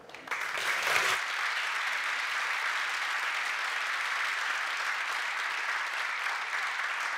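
Audience applause that swells in within the first half-second, then holds steady.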